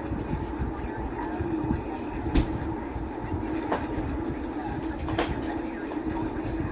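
Steady rumble of a moving vehicle, with a constant low hum and scattered sharp clicks.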